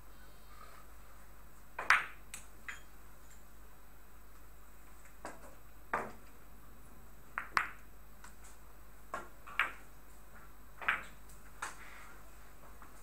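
Hard billiard balls clicking on a carom table: the cue striking the ball, then balls knocking into one another and off the cushions. About a dozen sharp clicks come at irregular intervals, the loudest about two seconds in.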